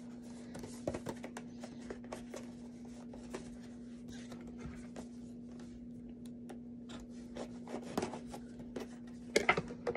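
A cardboard box and the plastic packaging of a figure stand being handled and opened: scattered scratches, rubs and small clicks, a cluster of louder clicks near the end, over a steady low hum.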